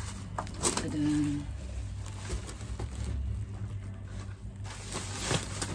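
Plastic wrapping rustling and crinkling in a few short, sharp rustles as a portable speaker is pulled out of its bag, over a steady low hum.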